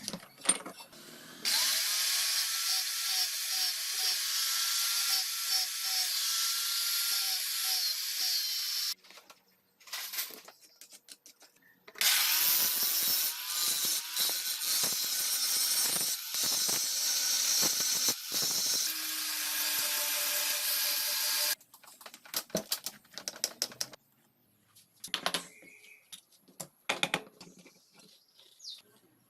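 A power tool running in two long stretches of about seven and nine seconds, with scattered clicks and knocks between them and afterwards.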